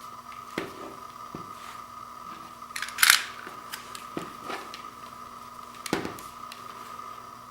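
Hands handling a sealed vinyl LP: scattered short crackles and clicks of plastic wrap and cardboard sleeve, loudest a sharp crackle about three seconds in, over a steady faint high hum.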